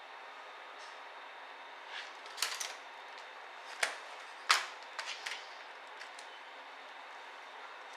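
Light clicks and taps of laptop parts being handled during disassembly: a quick cluster about a third of the way in, then a few single sharp clicks, the loudest just past halfway, over a steady hiss.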